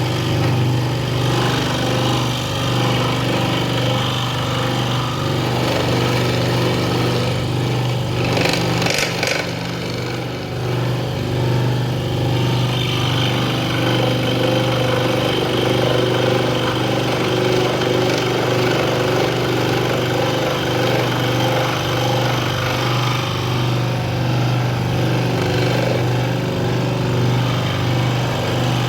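Proxxon scroll saw running steadily, its reciprocating blade cutting through wood over a constant low hum. A brief sharper noise comes about nine seconds in.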